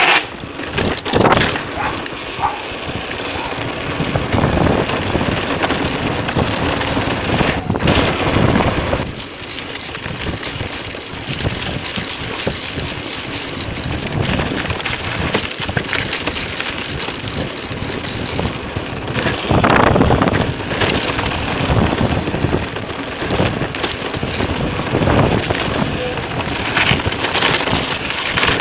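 Downhill mountain bike ridden fast over rough ground: wind rushing over the camera microphone with the continuous clatter and rattle of the bike's chain, suspension and tyres, and several hard knocks from impacts, the first about a second in.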